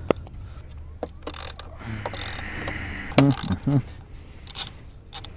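Hand tools clicking and rattling: a few sharp clicks and a short mechanical rattle in the first half, with a couple of mumbled words just past the middle.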